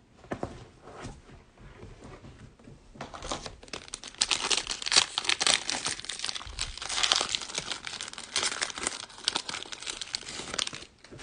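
Plastic wrapper of a trading-card cello pack being torn open and crinkled by hand. There are a few light rustles at first, then dense crackling from about three seconds in that eases off near the end.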